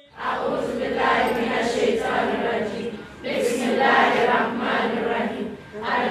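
A large group of schoolchildren's voices in unison, in phrases with short breaks about three seconds in and near the end.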